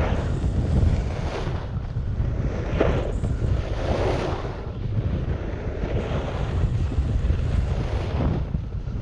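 Wind buffeting a GoPro microphone, with the scraping of a snowboard's edge carving through groomed snow swelling with each turn, every second or two.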